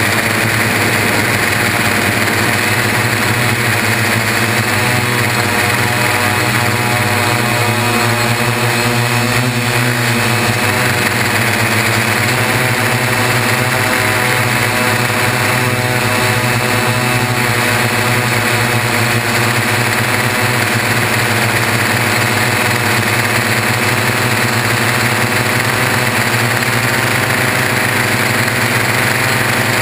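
Y6 coaxial multirotor's six brushless motors and propellers running steadily in flight, a continuous whirring drone that shifts pitch briefly about nine seconds in as the throttle changes. It is picked up by a camera hardmounted to the frame.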